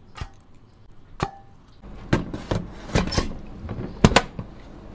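Knocks and clicks from handling an electric rice cooker set with rice and water. They end in a sharp double click about four seconds in as the lid is swung shut.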